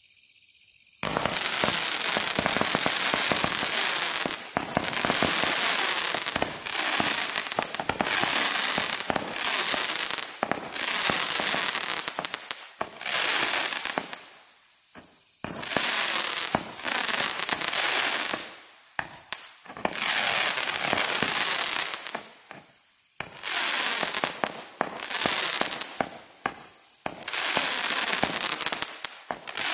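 Firework barrage cake (Frenzy, a 90-shot barrage) firing. Starting about a second in, it sends up shot after shot with hissing, crackling tails, in runs of a second or two separated by brief gaps.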